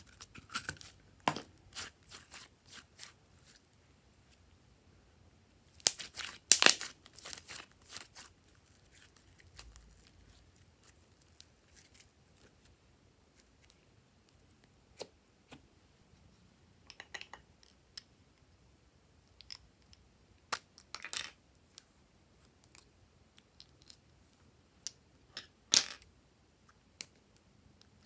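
Thick glossy slime being squeezed out of a plastic toy container and dropped into a glass bowl: scattered wet crackles, pops and clicks, loudest about six seconds in. Near the end, sharp snips of scissors cutting lipsticks into the slime.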